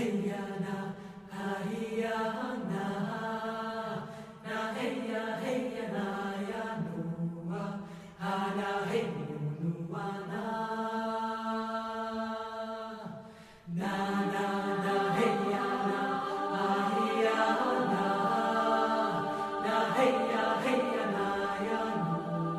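Background music: a choir chanting in long held notes, phrase after phrase, with brief pauses between them.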